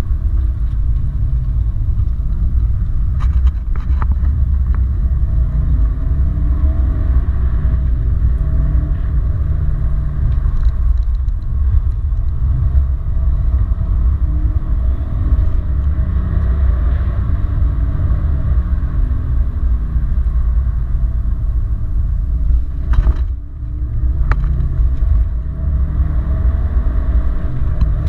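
Subaru Impreza WRX STI's turbocharged flat-four heard from inside the cabin at track speed, revving up and easing off again and again through the gears over a heavy rumble of cabin and road noise, with a brief drop in the noise about three quarters of the way through.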